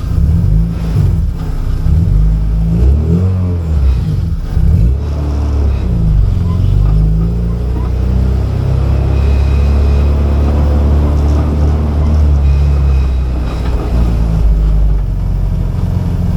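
Honda H22 four-cylinder engine in a Civic revving up and down as the car pulls off, then running at a steady pitch under load for several seconds and easing off near the end.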